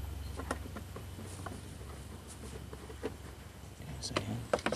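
Plastic motor-oil bottles being handled and knocked against the rubber floor mat: scattered light clicks and knocks, with a quick cluster of louder ones near the end as a bottle is picked up. A low hum underneath fades away.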